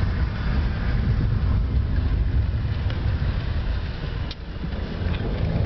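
Steady low rumble of road and engine noise heard from inside a moving taxi, dipping briefly about four seconds in.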